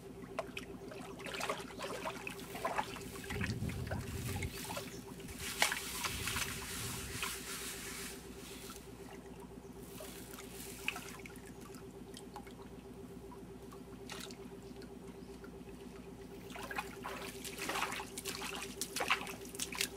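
Water sloshing, trickling and splashing as a gold pan is swirled and dipped in a shallow stream to wash sand, busiest in the first several seconds. Near the end come splashing steps wading through the shallow water.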